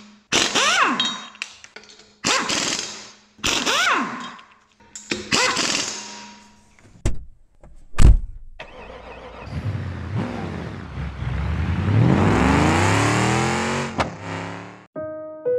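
Intro sound effects of a car engine: a run of short revs about a second apart, two sharp knocks around the middle, then a long rising engine build-up that cuts off suddenly near the end.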